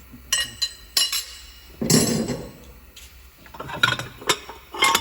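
Metal engine parts and tools clinking and clanking as they are handled during an engine teardown: a series of sharp clinks, a heavier clunk about two seconds in, and a few ringing metallic clinks near the end.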